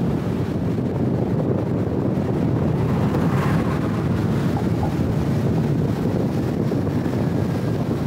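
Wind rushing over the microphone of a camera held outside a moving car, mixed with the car's road noise. It is a steady low rumble, with a brief brighter swell about three and a half seconds in.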